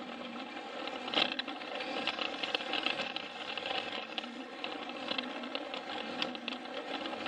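Plarail toy train running on plastic track: its small electric motor and gears whirr steadily, with many small irregular clicks and rattles from the wheels and track.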